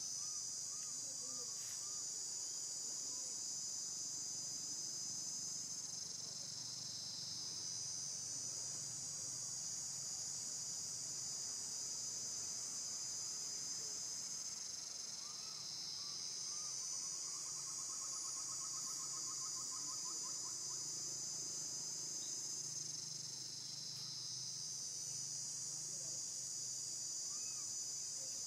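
Steady, high-pitched insect chorus that swells and eases in long waves. A few faint chirps and a short trill come through underneath past the middle.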